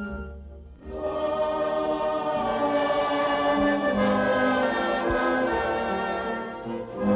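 Film score music: a choir singing long held chords over an orchestra. It swells in about a second in after a brief lull.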